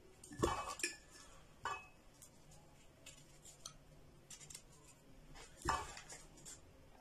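A few light knocks and clinks of a small kitchen knife and lemons being handled on a plate, with the clearest about half a second in, another near two seconds, and one near six seconds.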